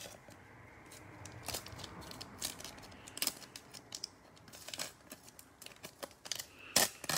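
Shiny plastic wrapper of a Prizm football card pack crinkling and tearing as it is ripped open by hand: a run of sharp crackles that starts about a second in and grows louder near the end.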